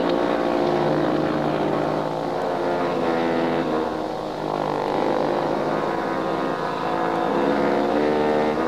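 Instruments led by French horn hold a droning chord of several sustained notes. The notes shift to a new chord about halfway through.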